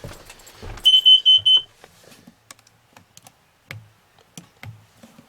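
Kidde combination smoke and carbon monoxide alarm sounding four quick, loud, high-pitched beeps about a second in, then a few faint clicks and taps. It is the carbon monoxide alarm, which the owner blames on exhaust fumes leaking from the seals of the exhaust manifolds.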